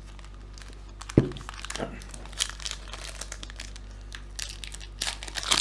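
Plastic card-pack wrappers crinkling and tearing as hockey card packs are opened and handled, with a single thump about a second in.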